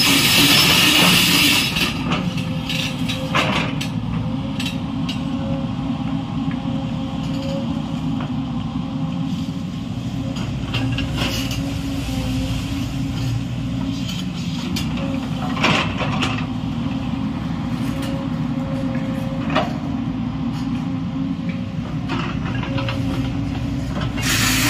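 JCB 220 crawler excavator's diesel engine running steadily under working load. A loud rushing hiss fills the first two seconds, and a few sharp knocks stand out over the engine.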